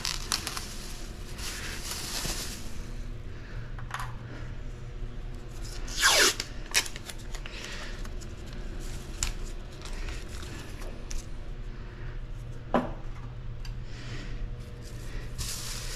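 Plastic masking sheeting rustling and being pressed down, with masking tape pulled off the roll in a few short rips, the loudest about six seconds in, over a steady low hum.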